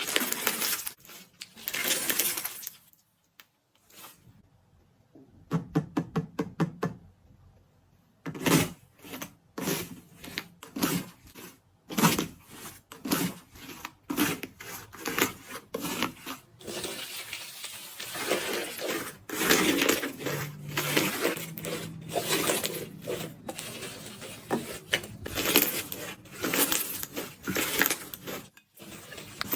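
Crispy iceberg slime's dried crust crackling and crunching in repeated bursts as it is pressed and broken. There is a short lull about three seconds in, then a quick run of even clicks, then denser crackling.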